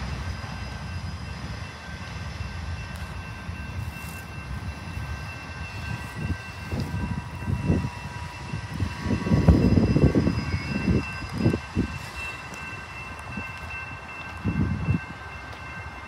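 Freight train running by, a low rumble with thin steady high squealing tones, typical of wheel squeal. Gusts buffet the microphone in bursts, loudest about ten seconds in.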